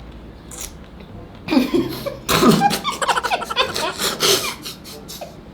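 People laughing: a loud burst of laughter about one and a half seconds in, running on in quick repeated bursts for about three seconds before dying down.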